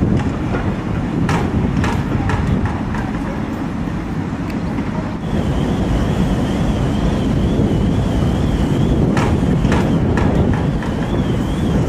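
Steam locomotive running slowly tender-first, with a heavy low rumble and wind on the microphone. Sharp metallic clanks come in two clusters, in the first few seconds and again near the end. From about halfway a faint high tone wavers up and down.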